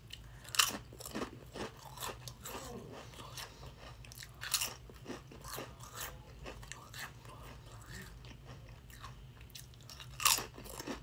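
Close-miked mouth sounds of someone eating Sun Chips: a sharp crunching bite about half a second in, crunchy chewing with further crunches, and another loud bite near the end.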